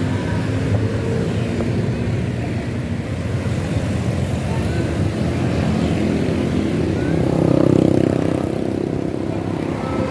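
Large bus engines and road traffic running steadily. The low rumble swells louder for about a second and a half, starting about seven seconds in.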